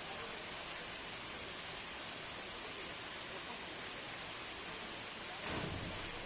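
Waterfall rushing as a steady hiss of falling water, with one brief low thump about five and a half seconds in.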